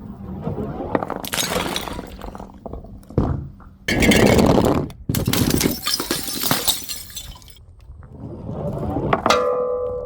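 Glass bottles shattering in a series of crashes, the loudest about four seconds in. A ringing tone starts near the end.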